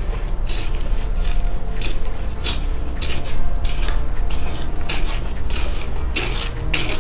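Quick-setting hobby mortar being stirred by hand in a plastic tub: gritty scraping strokes, about two a second, as the tool drags through the wet cement paste and against the tub's sides.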